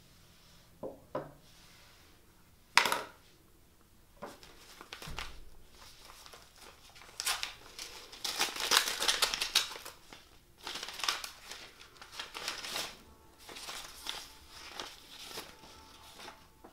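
Two light taps and a sharp knock in the first few seconds, then paper being handled, rustling and crinkling in irregular bursts that are loudest near the middle.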